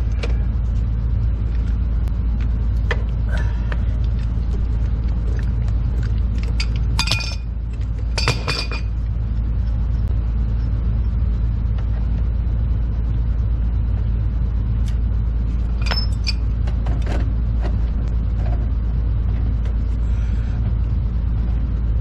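A steady low rumble, with a pipe wrench and metal gas-pipe fittings clinking and knocking now and then. The loudest ringing metal clinks come about seven and eight and a half seconds in.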